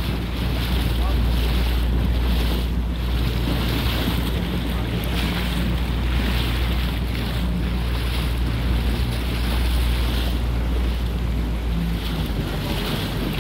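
A motorboat under way: steady low engine drone with water rushing past the hull and wind buffeting the microphone.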